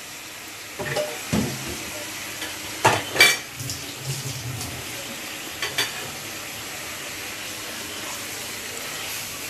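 Rohu fish steaks sizzling in spiced oil in a karahi as they are sautéed. A metal spatula knocks and scrapes against the pan a few times, loudest about three seconds in.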